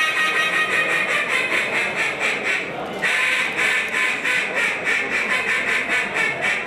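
Competition duck call imitating a mallard hen, blown into a microphone in a fast run of short quacking notes, with a brief break about three seconds in before the calling picks up again.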